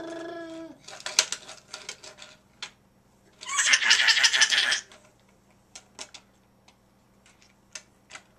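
A toddler's voice: a drawn-out vocal sound ending within the first second, then a loud, breathy laugh about three and a half seconds in, lasting over a second. Light clicks and taps of small toy cars on the wooden chair seat fall in between and after.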